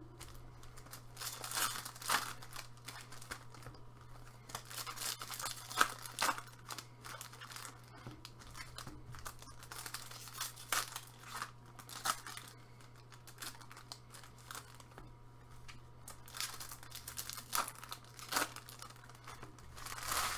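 Foil wrappers of MVP hockey card packs crinkling and tearing as gloved hands open them and pull the cards out, in irregular crackly spurts.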